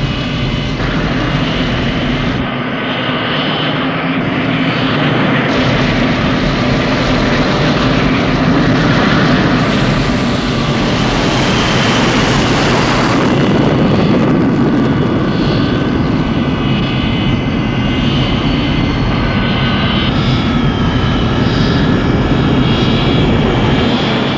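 Airliner engines running loud and close, a steady dense rush with a high whine through it; the noise swells and turns brighter about ten seconds in.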